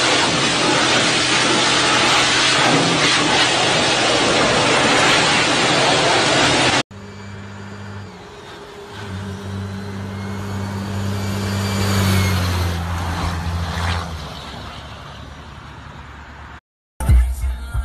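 A loud, steady hiss of vapour pouring out of a truck's engine bay, with a low steady hum underneath. After a sudden cut, a truck drives past on a road, its engine note growing louder as it approaches and fading as it goes by.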